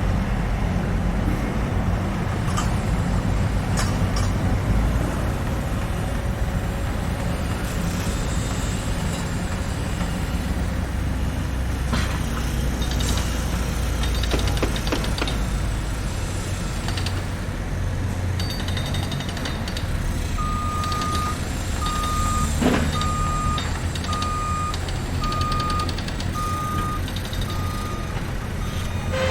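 Heavy construction machinery rumbling steadily, with a few scattered knocks and clanks. About two-thirds of the way in, a vehicle's reversing alarm starts, beeping a single steady tone at an even pace.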